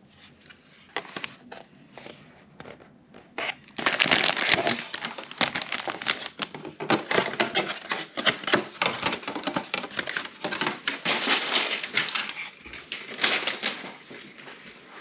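Clear plastic wrapping being handled, crinkling with a few faint clicks at first and then a long run of quick, sharp crackles from about four seconds in.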